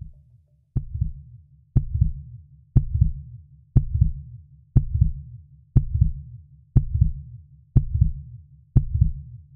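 Deep heartbeat-like thuds from a credits sound effect, one about every second, nine in all, each with a sharp click at its start.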